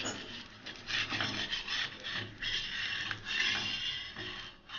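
Metal spatula scraping against a flat iron tawa in several strokes as it works under a rice roti to loosen and turn it.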